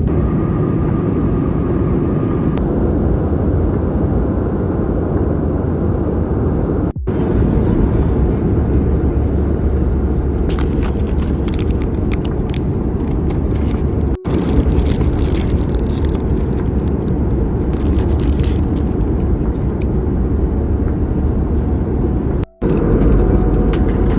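Steady, loud rumble of an airliner cabin: engine and airflow noise, broken by three abrupt cuts where the recording is spliced.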